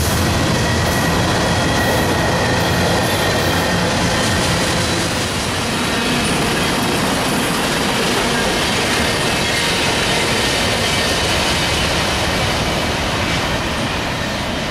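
Freight cars of a Norfolk Southern mixed freight train rolling past: a steady rumble and clatter of steel wheels on the rails, with a faint wheel squeal in the first few seconds.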